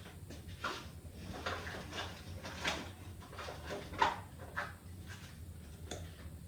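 Irregular soft rustles and light clicks of hands working on a wig's hair, about a dozen short sounds with the loudest near the middle.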